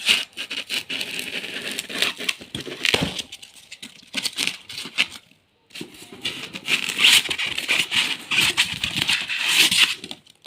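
Thermocol (expanded polystyrene) packing pieces being pulled out of a cardboard box: irregular rubbing, crackling and clattering, with a short pause about five seconds in.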